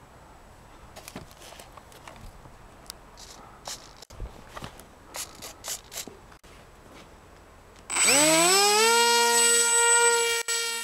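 Faint clicks and rustles of handling, then about eight seconds in the electric motor and propeller of a Z84 foam flying wing spools up with a rising whine and holds a loud, steady high-pitched buzz.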